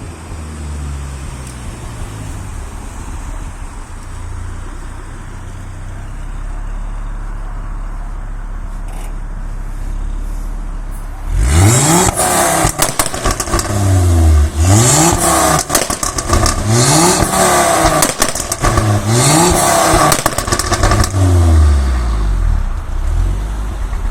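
Ford Focus Mk2 2.5 turbo five-cylinder engine idling through a loud exhaust. About halfway through it is revved hard several times in quick succession, each rev rising and falling, with the exhaust crackling and popping on the overrun.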